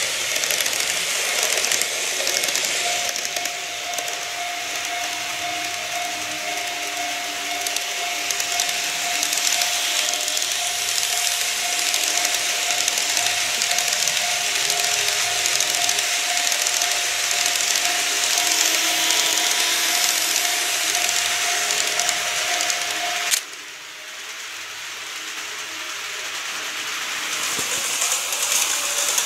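Model electric trains running on track: a steady hiss of wheels and gearing with a steady motor whine. It cuts off suddenly a little after twenty seconds in, then the running noise slowly builds again near the end.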